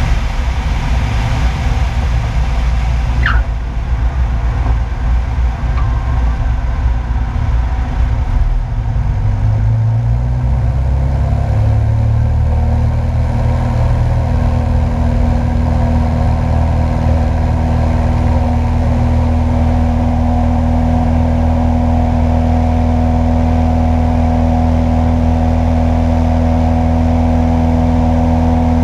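Single-engine light airplane's piston engine and propeller at low power over wind rush as it rolls down the runway, with a brief rising squeak about three seconds in. Around ten seconds in the power comes up, the engine rising in pitch and then running steadily at full power for the takeoff and climb.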